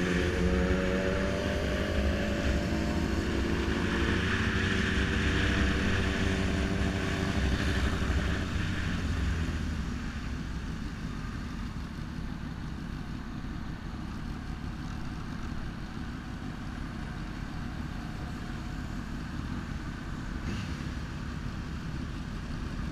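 Sport motorcycle engine running under way with wind noise on the microphone, its pitch rising over the first couple of seconds. About nine seconds in the engine note drops away as the bike rolls off and slows, leaving a quieter engine rumble.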